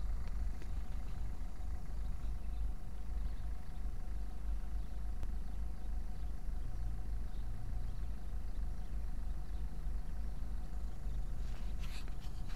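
Low, steady outdoor rumble of road traffic, with a car's engine running nearby.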